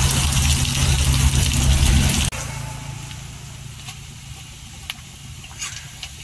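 Sliced onions sizzling in hot oil in an aluminium kadhai on a gas stove, over a steady low rumble. About two seconds in the level drops suddenly to a quieter sizzle, with a couple of light clinks of a steel ladle against the pan near the end.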